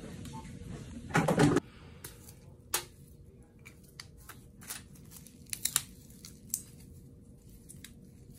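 A loud rustle just over a second in, then scattered sharp crinkles and clicks of syringe and needle wrappers and syringes being handled over a steel instrument tray, under a faint steady hum.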